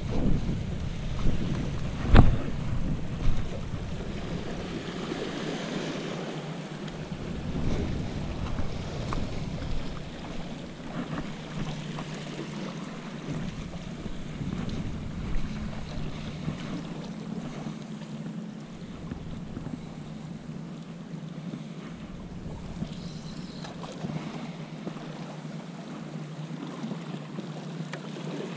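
Wind buffeting the microphone in gusts over the wash of waves breaking against jetty rocks, with a single sharp knock about two seconds in.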